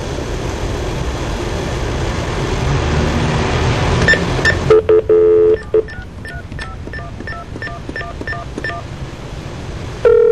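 Telephone line hiss, then a brief dial tone and a quick string of touch-tone (DTMF) digits being dialed, about three beeps a second. Another steady tone starts near the end.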